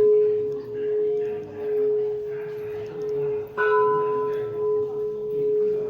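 A temple bell rings on with a long, steady hum from a strike just before. It is struck again about three and a half seconds in, with a bright clang that fades back into the hum.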